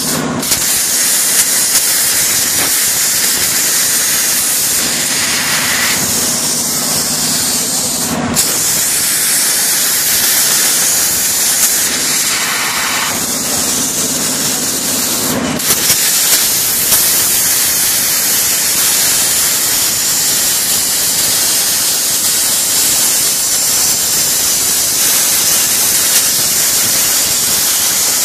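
CNC plasma cutter torch cutting steel plate: a loud, steady hiss of the plasma arc and its air jet. A low hum joins it twice for a few seconds and stops sharply about 8 and 15 seconds in, each time with a brief break in the hiss.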